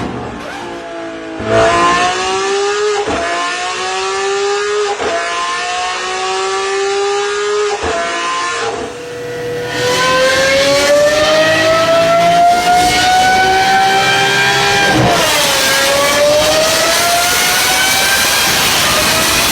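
Naturally aspirated V12 supercar engine accelerating hard through the gears: the pitch climbs and drops sharply at each upshift, with three quick shifts in the first half, then a long climb to one more shift near the end.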